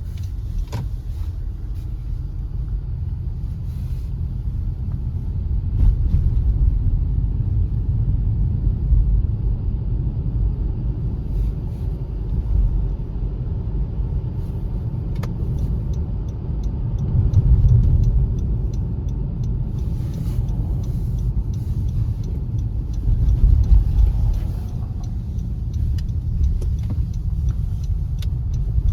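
Car driving, a steady low rumble of engine and road noise that swells and eases a little now and then.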